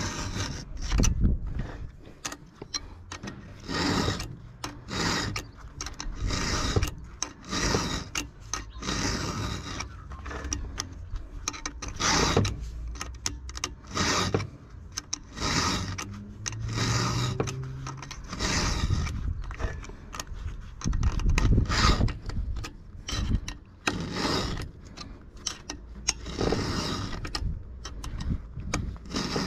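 A 5.5 mm round file rasping across the cutters of a .404 semi-chisel chainsaw chain through a clip-on file guide: repeated push strokes, about one a second, with short pauses between them, sharpening the chain by hand.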